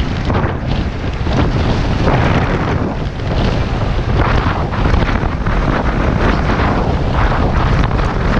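Wind buffeting the microphone in a steady, loud rush while riding an electric moped at speed.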